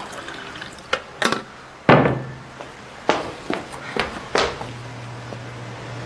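A series of short, sharp knocks and thuds, about seven of them, the loudest about two seconds in, over a faint low hum.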